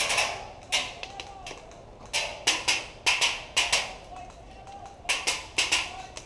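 Airsoft guns firing: sharp cracking shots in small groups of two or three, repeated every second or so.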